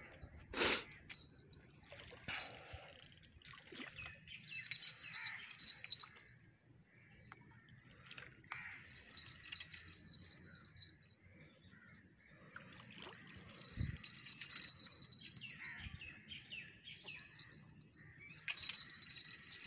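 Birds chirping, with a high insect buzz that swells and fades several times.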